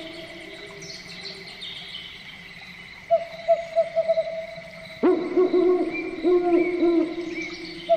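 Forest birds calling: fast runs of low hooting notes, quiet at first and louder from about five seconds in, with a few higher chirps from other birds.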